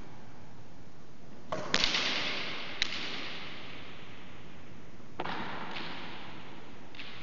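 Hard racquets ball cracking off the racquet and the court's walls and floor, each sharp hit followed by a long echo in the big hall: a quick run of three cracks about a second and a half in, another a second later, then fainter knocks later on.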